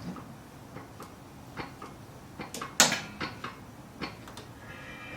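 Scattered sharp clicks and knocks, a few per second, the loudest about three seconds in; music begins faintly near the end.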